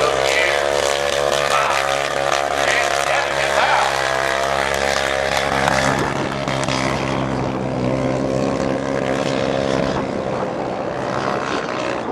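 An engine running at a steady speed: an even drone that changes pitch about six seconds in and grows fainter toward the end.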